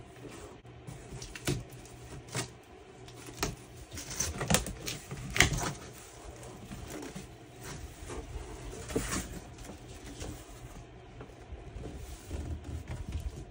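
Cardboard shipping box being opened by hand: the flaps scrape, bend and knock in a string of short, irregular sounds, a few of them sharper and louder near the middle.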